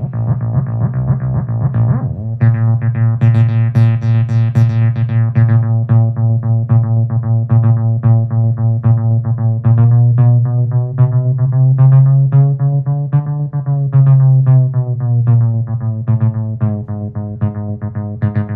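Behringer TD-3-MO, a TB-303-style bass synth, playing a sequenced acid bassline: fast repeating notes over a steady bass. The pattern changes about two seconds in, and the tone then brightens and sweeps up and back down as the filter is moved.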